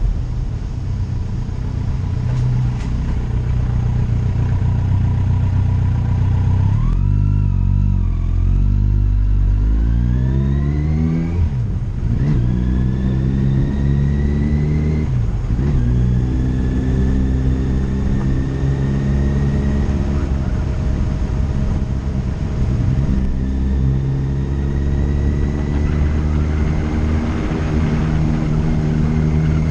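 Engine of the vehicle carrying the camera, heard onboard, pulling through the gears: its pitch climbs, drops back at gear changes about twelve and fifteen seconds in, then climbs again. Wind rush runs underneath.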